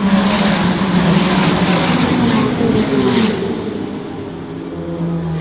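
A pack of Ferrari Challenge race cars accelerating past at full throttle, a loud mass of engine notes rising and falling for about three seconds, then easing off as the field moves away.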